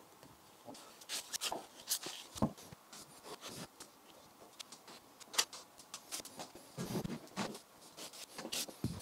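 Plastic spreader scraping and smearing black polyester body filler across a car bonnet, in short, irregular strokes.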